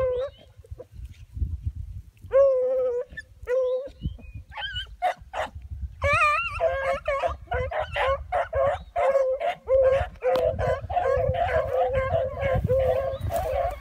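Pack of beagles baying on a scent trail. First come a few separate drawn-out bawls. Then, from about six seconds in, several hounds give short, choppy voice together with hardly a break.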